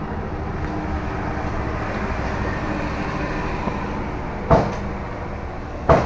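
Steady low hum and hiss of background noise, with two sharp, loud clicks about four and a half and six seconds in: keys struck on a computer keyboard as a Windows password is typed.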